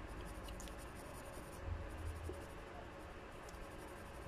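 Graphite pencil scratching faintly on sketchbook paper as it shades.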